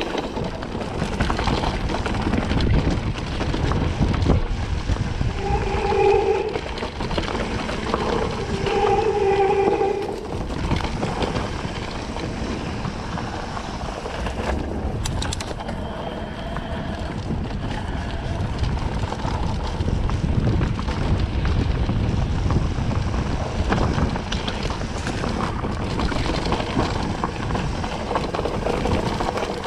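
Wind buffeting the microphone and rattling noise from a mountain bike descending a rough trail. There are two short squeals, about six and nine seconds in.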